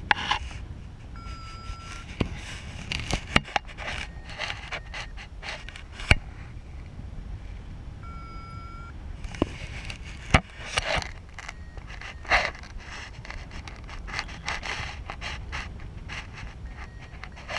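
Wind rushing over a paraglider pilot's camera microphone, with irregular rustling, clicks and scrapes. Two short electronic beeps sound about a second in and again about eight seconds in.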